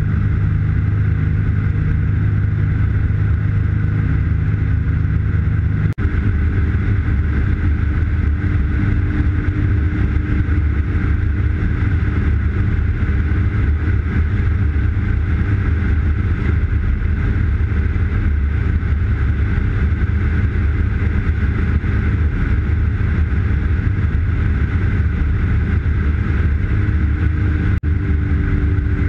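Turbocharged Subaru EA81 engine direct-driving a three-blade Warp Drive propeller, heard as a steady drone from inside the Dragonfly's cockpit in flight. The sound cuts out for an instant about six seconds in and again near the end, and the pitch of the drone shifts slightly after the first break.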